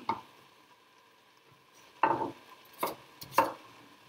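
Chef's knife chopping a raw sweet potato on a wooden cutting board. There is one knock at the start, then after a pause three separate chops in the second half.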